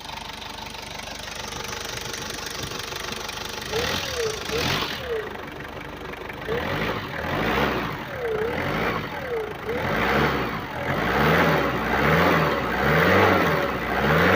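Toyota Regius van's engine idling steadily, then revved in quick blips from about four seconds in, its pitch rising and falling roughly once a second and getting louder toward the end.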